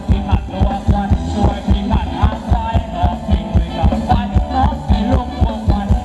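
Live ramwong dance band playing an instrumental passage: a steady, fast drum beat of about three beats a second under a melody line.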